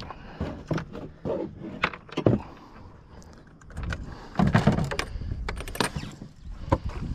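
Handling noise from putting a caught fish on a stringer in a small boat: scattered clicks and knocks with rubbing, and a heavier stretch of knocks and rumble a little after four seconds.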